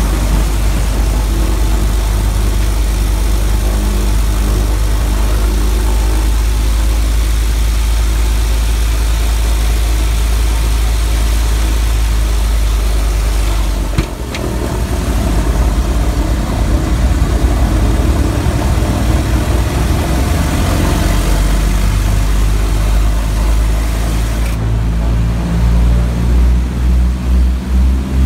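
Twin Wright R-1820 Cyclone radial engines of a Grumman Albatross droning steadily, heard from inside the cockpit as the flying boat runs on the water. A click and brief dip come about halfway, and near the end the engine sound takes on a throbbing beat as the throttles are worked.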